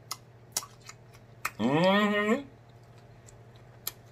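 Wet lip smacks and mouth clicks from eating and finger-licking, then a rising 'mmm' hum of enjoyment lasting under a second, about halfway through.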